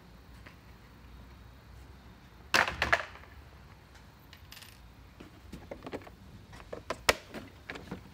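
Molded plastic body panels of a Power Wheels ride-on Jeep being handled: a cluster of loud hollow knocks about two and a half seconds in as a panel is set down, then lighter clicks and taps as the hood is gripped, with one sharp click about seven seconds in.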